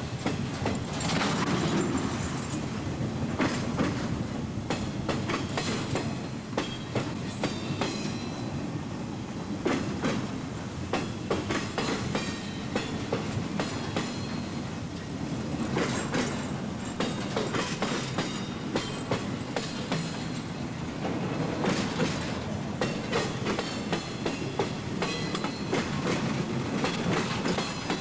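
Empty railroad flatcars of a CSX freight train rolling past close by: a steady rumble of wheels on rail, with regular clickety-clack clicks as the wheels cross the rail joints.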